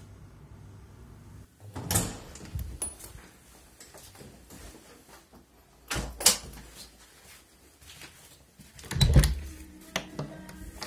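A few dull thumps and knocks with a low rumble: one group about two seconds in, another around six seconds and the loudest around nine seconds, with smaller clicks between.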